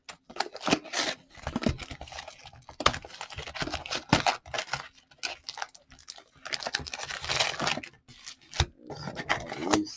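Plastic shrink wrap crackling and tearing as it is stripped off a cardboard trading-card box, with cardboard rustling as the box is opened: a dense run of irregular crinkles and clicks with a few short pauses.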